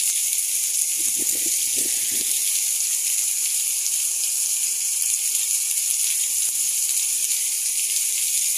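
Heavy rain pouring down steadily, a dense even hiss.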